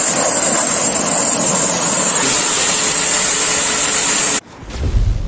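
High-pressure washer jet spraying with a steady loud hiss over the machine's running noise. The sound shifts about two seconds in and cuts off suddenly near the end, followed by a deep, swelling boom.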